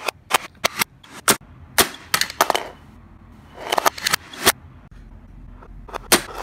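Playskool pop-up toy's spring-loaded plastic pegs snapping up and flinging off small toy trains, making a string of sharp plastic snaps and clacks, some single and some in quick clusters.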